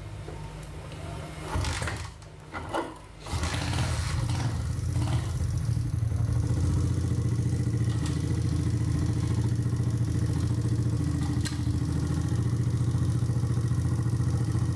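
Small single-cylinder 70cc motorcycle engine being started, with a few mechanical knocks before it catches about three seconds in, then running steadily. The gearbox has just been reassembled with a resurfaced washer seat, a new gear drum finger and a repaired second-gear sprocket.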